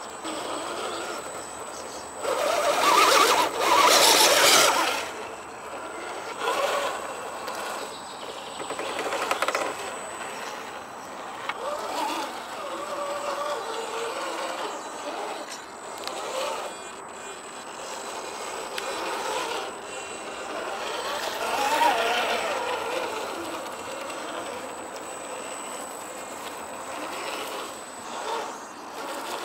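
Electric motor and geared drivetrain of a radio-controlled scale rock crawler whining as it creeps over rocks. The pitch rises and falls with the throttle, with a louder burst of noise a few seconds in.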